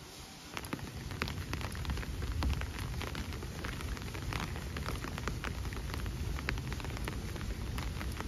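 Food sizzling and crackling in hot oil in a frying pan, starting abruptly about half a second in, with a low rumble underneath.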